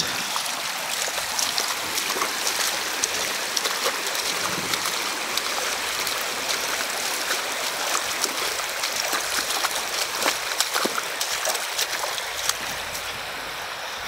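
Shallow river water rushing and rippling steadily over a stony bed, with small scattered splashes from bare feet wading through it.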